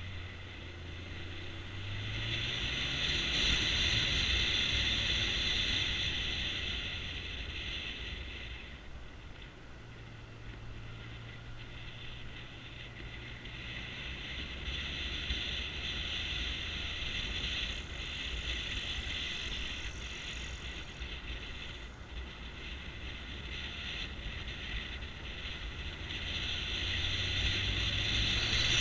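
Motorbike riding along a mountain road, heard from a camera on the bike. The engine runs steadily and rises in pitch as it speeds up about two seconds in and again near the end, under constant wind and road noise.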